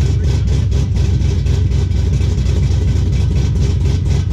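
Cammed Chevrolet Camaro SS V8 idling loudly through a custom 3-inch exhaust, straight-piped from the headers back with only Flowmaster mufflers. The idle has an uneven, choppy lope of a few pulses a second from the aftermarket camshaft.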